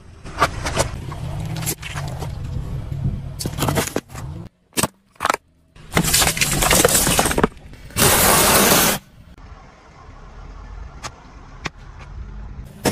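A car tyre rolling over and crushing liquid-filled plastic objects (rubber gloves, plastic bottles, balloons) in a series of cut-together clips: a low tyre rumble with sharp cracks and pops, two loud rushes of noise in the middle lasting about a second each, then sparser clicks.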